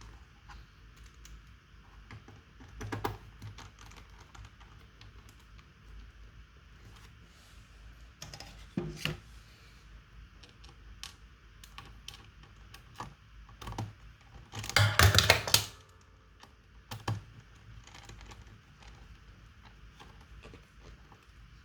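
Keys pressed on a laptop keyboard: a few scattered single presses, then a quick run of keystrokes about fifteen seconds in.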